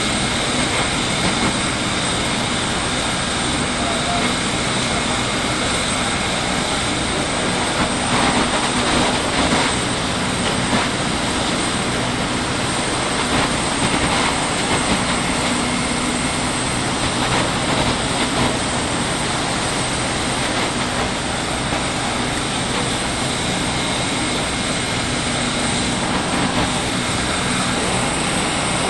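Steady, loud drone of running engines, as of emergency vehicles idling, with a few faint steady whining tones above it.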